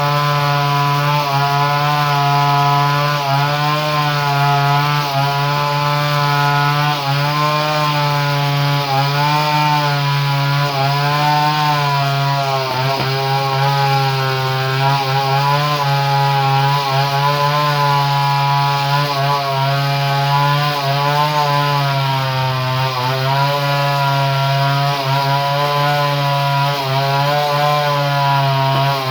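Small two-stroke chainsaw engine running steadily at a near-constant speed, its pitch wavering slightly without revving up or down.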